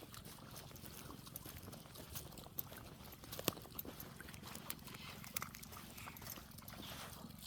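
A dog lapping and slurping water: a run of faint, irregular wet clicks, one sharper click about three and a half seconds in.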